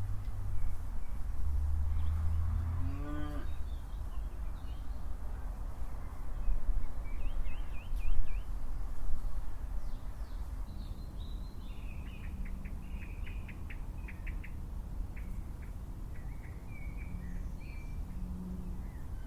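A cow mooing: one long low call that rises in pitch and stops about three seconds in. Small birds then chirp and trill.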